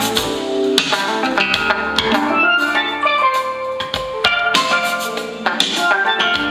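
Recorded music played back through a Midas MR18 digital mixer and a monitor loudspeaker for a sound check: a song with quick melodic notes over a drum beat.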